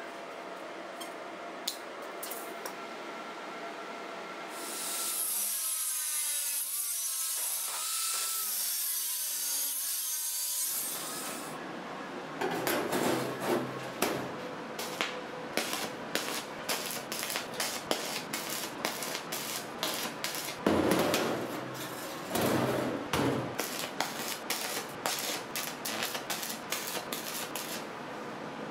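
Metalworking on a perforated steel sheet: a steady hiss with a wavering whine from about five to eleven seconds in, then dense rapid crackling and popping from a stick welder tacking flat steel bars onto the sheet.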